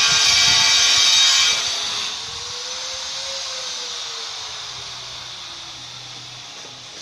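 An electric power tool running with a high whine, cutting off about one and a half seconds in; a fainter whine then rises and falls in pitch and dies away.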